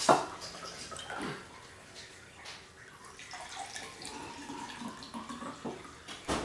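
Wine poured from a bottle into a glass: a faint liquid pour with a thin ringing note that runs from about three seconds in to near the end, after a single knock at the start.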